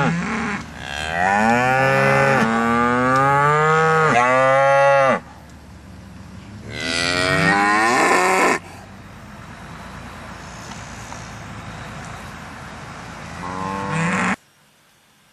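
Charolais cattle mooing: a series of long, loud moos whose pitch wavers and slides, the longest about four seconds, then a short one near the end. A steady hiss of outdoor background lies between the calls.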